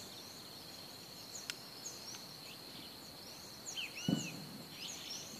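Quiet rural ambience: a steady high-pitched insect drone with scattered bird chirps. There is a faint click about one and a half seconds in and a brief, slightly louder call about four seconds in.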